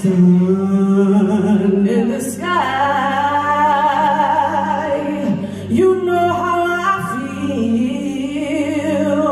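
A woman singing solo into a microphone, holding long notes with a wavering vibrato, and stepping up to higher notes about two seconds in.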